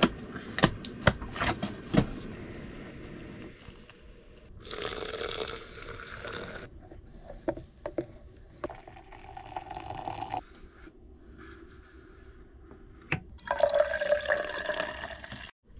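French press coffee being made: a few sharp clicks of a plastic container lid, a pour of water into the glass carafe, a spoon stirring in the carafe, then near the end brewed coffee poured from the French press into a steel mug.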